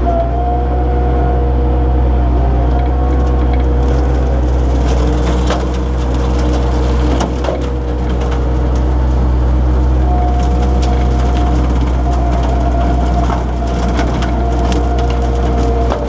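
Skid steer engine running under load with a steady hydraulic whine as its hydraulic-driven bush hog rotary cutter chews through brush: sticks and saplings snapping and cracking in the mower, in clusters a few seconds apart.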